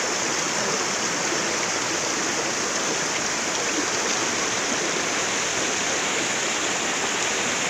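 Shallow rocky river rushing steadily over and between boulders, a constant even rush of water.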